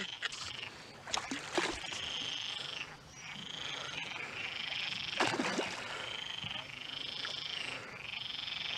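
Frogs croaking in a repeated chorus, roughly one short rising-and-falling call a second. A few short, sharp noises come about a second in and again around five seconds in.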